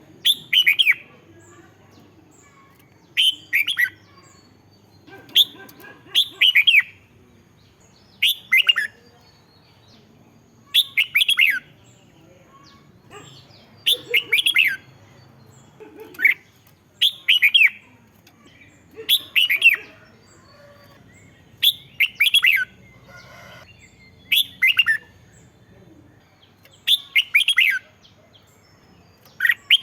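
Red-whiskered bulbul singing: short phrases of several quick, bending whistled notes, repeated about every two and a half seconds.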